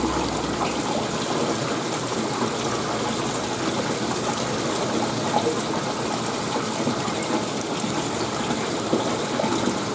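Steady gushing and bubbling of water in a fish holding tank, with a few faint clicks.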